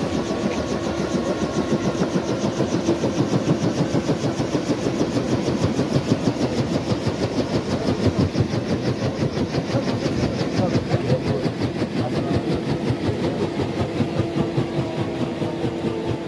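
Light helicopter running on the ground, its main rotor turning: a steady, rapid, even beat of the blades over the whine of the turbine engine.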